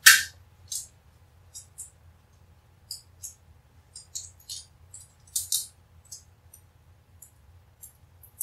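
Adhesive tape being handled, torn and pressed down by hand: scattered short crinkling and rustling sounds at irregular intervals, the loudest right at the start.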